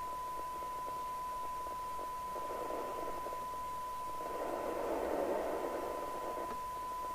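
President Walker CB radio's receiver audio during a sensitivity test: a steady test tone over a background of receiver hiss, with the received signal near the 12 dB SINAD point. The hiss swells twice, most strongly from about four to six and a half seconds in.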